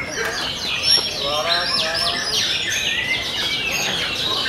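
Several white-rumped shamas singing at once: dense overlapping whistles and quick falling chirps, with a sharp click about a second in.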